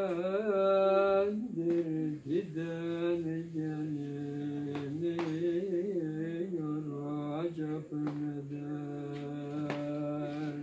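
A man singing solo and unaccompanied in a slow, ornamented style, holding long notes with wavering turns between them and pausing only briefly for breath.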